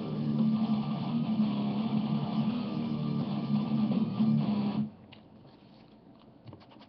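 Guitar music playing, cutting off suddenly about five seconds in. After it, only faint scattered ticks.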